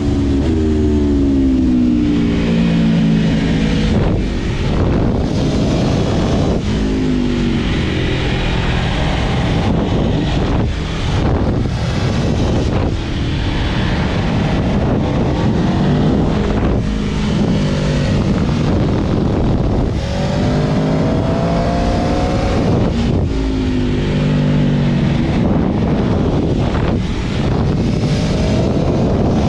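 Aprilia Tuono V4 Factory's V4 engine on its stock exhaust, accelerating hard through the gears: the revs climb and drop back at each upshift, several times over, with wind rushing past.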